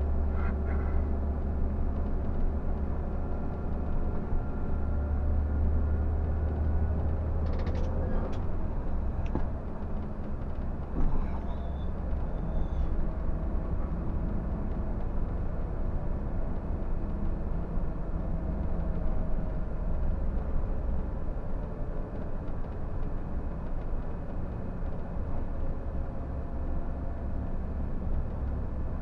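Scania bus's diesel engine running under way with road noise, heard from the driver's cab as a steady low drone. There are a few short clicks about eight seconds in and a bump near eleven seconds.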